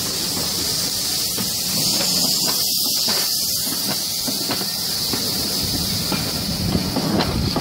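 Steam hissing steadily from beneath slowly passing railway coaches, escaping from their steam-heating pipes, with the wheels faintly clicking over the rail joints now and then.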